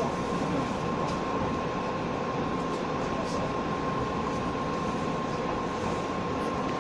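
JR West 117 series electric train running, heard from inside the car: an even rumble of wheels and running gear with a thin, steady high tone over it and a few faint clicks.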